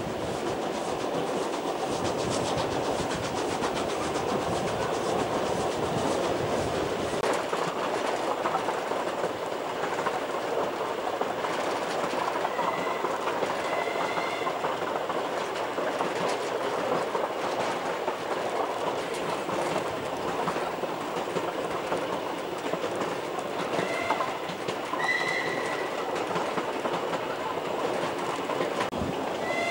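Narrow-gauge train carriages running along the track, heard from on board: a steady rumble with wheel clatter over the rail joints. Short high squeals break through a few times, around the middle and again later, and a louder pitched tone starts right at the end.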